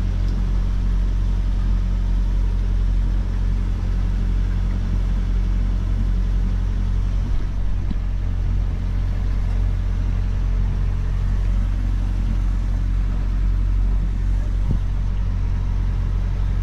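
Sailboat's inboard auxiliary engine running at a steady speed, a constant low drone with a noisy wash over it.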